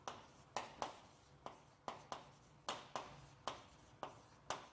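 Chalk writing on a chalkboard: about a dozen short, sharp taps and strokes at an irregular pace as letters are written by hand.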